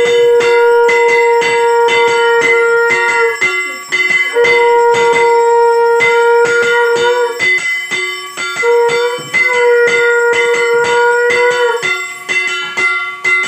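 A conch shell (shankha) blown in three long, steady notes of about three seconds each, the pitch sliding up as each starts, over rapid, continuous strokes on a handheld bell-metal plate (kansar) for a puja.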